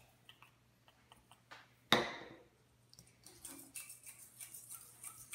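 Utensil tapping and clinking against a stainless steel mixing bowl: scattered light ticks, with one sharper clink about two seconds in that rings briefly.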